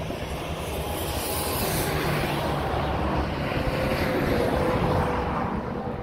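Wind on the microphone with the rumble of a passing vehicle, swelling towards the middle and easing near the end.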